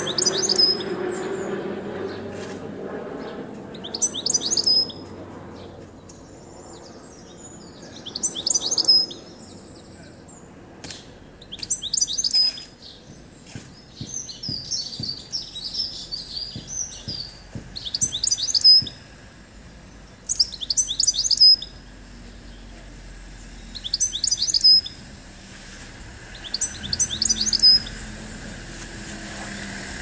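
European goldfinch singing: short, fast twittering phrases, each ending in a brief held high note, repeated about every three to four seconds, with one longer run of song midway.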